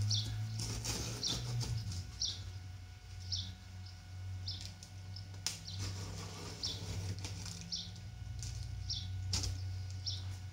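A bird chirping a short high note about once a second, over a steady low hum, with scrapes, rustles and taps from hands working along the top of a cardboard box.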